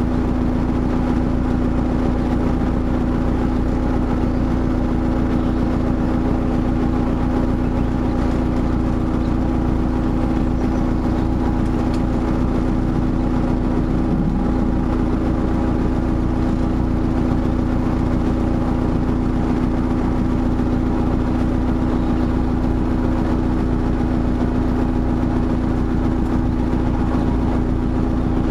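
Canal boat's inboard engine running steadily at low cruising speed, a constant even drone with no change in pitch.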